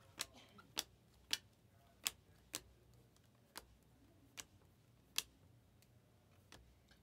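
Panini Prizm trading cards being flicked through one at a time, each card giving a short, sharp click, about nine in all at uneven intervals of roughly half a second to a second.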